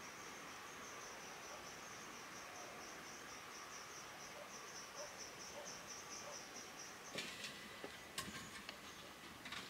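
Insects, cricket-like, chirping faintly in a high-pitched, even pulsing rhythm; the chirping stops about seven seconds in, and a few light clicks and knocks follow.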